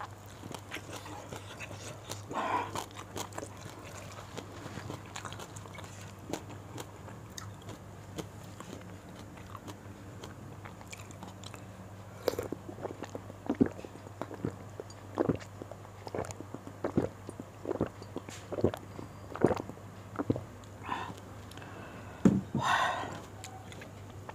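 Close-miked eating sounds: chewing, small lip and mouth clicks and the odd bite. From about halfway through come a series of gulps, roughly one a second, as warm water is drunk from a glass.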